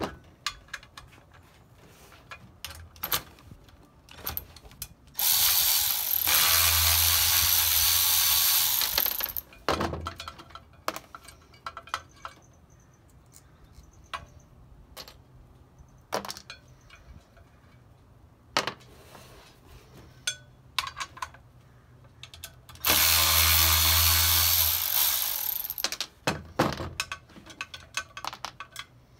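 Cordless power ratchet running twice, about four seconds and then about three seconds, spinning out the bolts that hold a two-piece brake rotor's ring to its hat. Between the runs, small metal parts (bolts, bobbins, springs) clink as they are handled.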